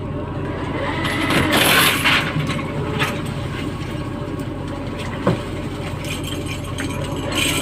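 Steady low drone of a fishing boat's engine and deck machinery. A noisy clatter comes about a second and a half in, and a single knock follows just after five seconds.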